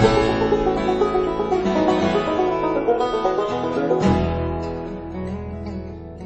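Instrumental background music with picked plucked strings, in a banjo-and-guitar style, gradually getting quieter.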